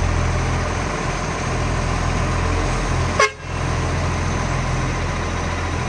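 Heavy diesel garbage truck engine running with a loud, steady low drone, typical of a large exhaust leak. About three seconds in there is a short toot, followed by a momentary drop in the sound.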